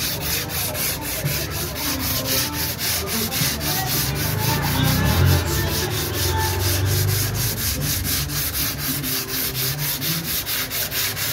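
120-grit sandpaper rubbed by hand over dried body filler on a car door: dry hand-sanding in rapid, even back-and-forth strokes.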